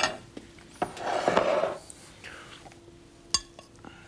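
Food being dished onto plates with cutlery and a serving spoon: a click, a short scraping rustle about a second in, then a single sharp clink of metal on a plate a little after three seconds.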